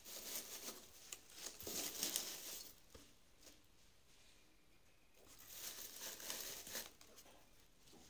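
Dry straw rustling and crackling as it is handled and tucked into a cardboard box of mangoes. There are two spells of handling, one at the start lasting about three seconds and another a little past the middle.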